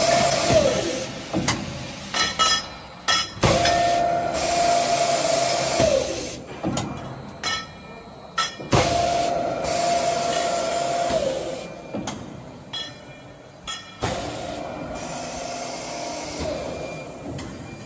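CNC double-end tube chamfering machine working through repeated cycles about every five seconds. Each cycle is a steady high squeal for two to three seconds that drops in pitch as it ends, followed by a run of sharp metallic clanks and knocks.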